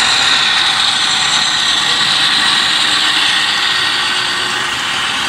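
Model diesel freight train running along the layout track: a steady whirring drone, sinking slightly in pitch and easing a little near the end as the locomotives pass.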